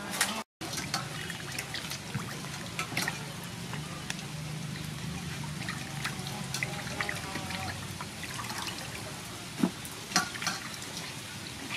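Hands rubbing and washing raw chicken gizzards in a stainless steel bowl of water: irregular sloshing, squelching and small splashes, with a couple of louder, sharper splashes near the end.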